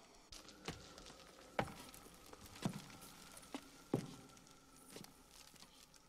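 Five heavy knocks about a second apart: footsteps coming down ladder rungs into an underground room, over a faint steady hum.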